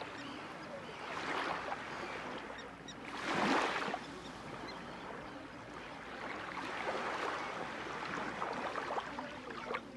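Small sea waves washing onto the shore, coming in repeated swells of hiss that rise and fall every few seconds, the loudest about three and a half seconds in.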